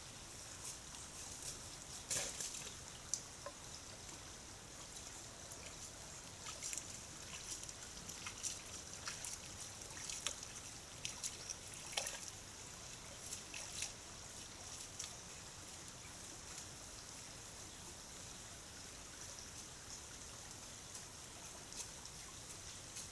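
Whitetail buck wading across a shallow brook: scattered small splashes and water trickling, thinning out after about fifteen seconds, over a steady hiss.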